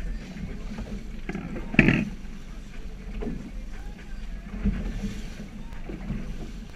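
Boat's outboard engine running steadily under wind and water noise, with a brief loud burst about two seconds in.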